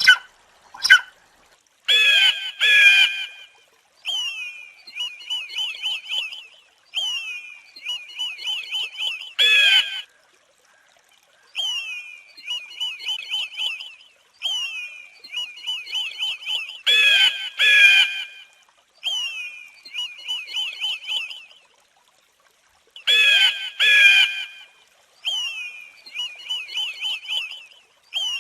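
Recorded calls of birds of prey (hawk and eagle). Loud harsh screams come singly or in pairs a few times, and between them run long series of rapid, high chattering notes.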